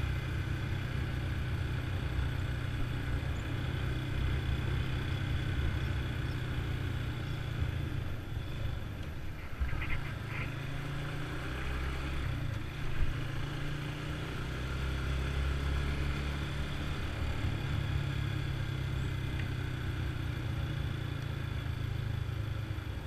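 Motorcycle being ridden, its engine running steadily under way with road and wind noise.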